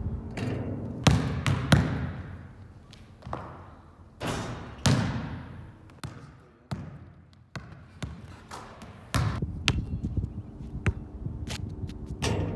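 A basketball bouncing and thudding on hard courts: a string of separate impacts, several followed by a long fading echo.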